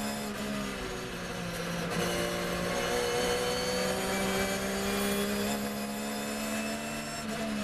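Porsche 911 GT3 R race car's flat-six engine heard from inside the cockpit at high revs, its note dipping briefly early on and then climbing again as the car accelerates.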